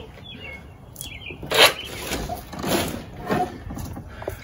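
Three short handling noises around the outboard motor, the loudest about one and a half seconds in, with birds chirping in the background.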